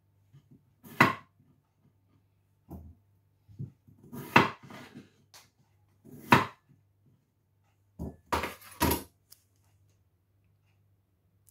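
Kitchen knife and potatoes knocking against a wooden chopping board while potatoes are peeled and cut: a handful of separate sharp knocks, one or two seconds apart, with a quick run of three near the end.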